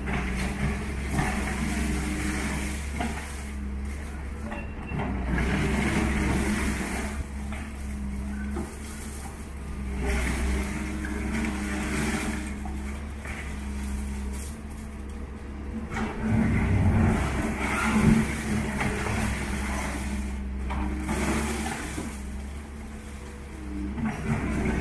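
Doosan wheeled excavator's diesel engine running steadily under load. Several times the bucket pulls down the walls, and broken concrete and brick crash and scrape into the rubble, with one loud crash about two-thirds of the way through.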